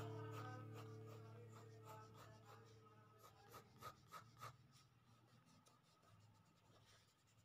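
Faint scratching of pencil strokes on drawing paper while shading, a few louder strokes near the middle, heard under the last guitar chord dying away at the start.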